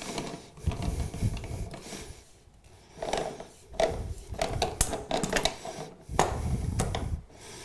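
A hand wrench tightening the nuts down onto the toilet's brass closet bolts, with a run of short metal clicks and scrapes, plus rubbing and knocking from handling at the floor flange.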